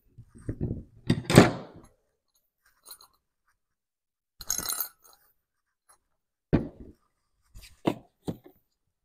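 Scattered handling sounds of a 4L60E transmission's aluminum accumulator housing, piston and spring being worked on a workbench: rubs and light clinks, the loudest a second or so in. Near the end come a few short knocks as the housing is set down on a wooden block.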